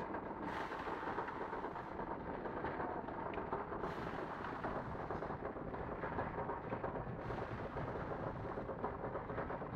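Muller Martini DS 240 three-knife book trimmer running: a steady, even mechanical noise with no pauses.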